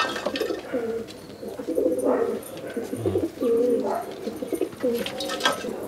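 Domestic pigeons cooing, several low calls overlapping and repeating one after another.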